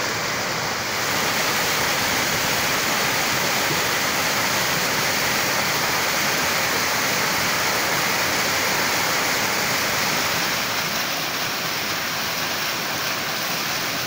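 Small mountain waterfall pouring down a narrow rock chute: a steady rushing of falling water that eases slightly after about ten seconds.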